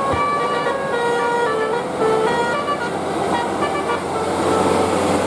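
Indonesian telolet bus horn playing a tune: several air-horn notes sound together and change pitch in steps. After about three and a half seconds the horn stops, leaving vehicle noise.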